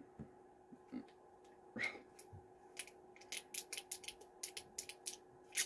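Fingers twisting and picking at the tight plastic cap of a small hot sauce bottle: a run of quick, faint, irregular clicks over the last few seconds.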